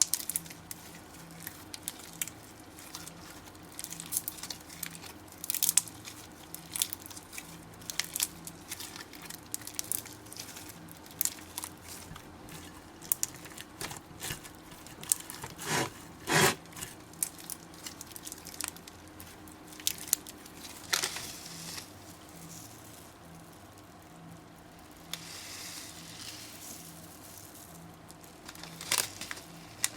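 Slime being squeezed and stretched by hand, giving irregular sticky crackles and pops, loudest about sixteen seconds in.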